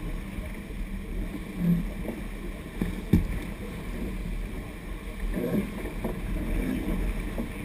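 Sailing yacht under way, with steady rushing water and wind rumble on the microphone, and a single sharp knock about three seconds in.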